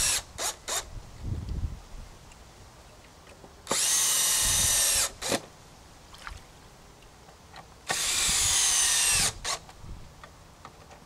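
Cordless drill-driver driving long screws into a timber post, in two runs of about a second and a half each, its whine dropping in pitch during each run. A few short clicks come right at the start.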